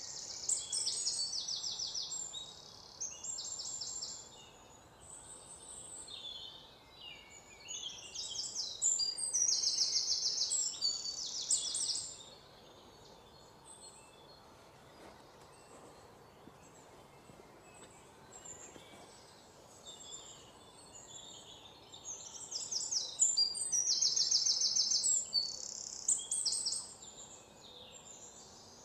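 Birds singing: high, rapid trilled phrases in three bursts separated by quieter stretches of several seconds, over a faint steady background hum.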